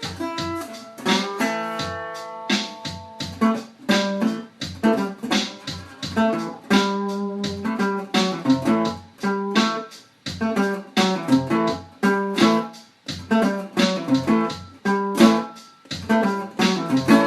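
Instrumental guitar music: plucked notes and chords in quick succession, each struck sharply and fading fast, in a steady rhythm.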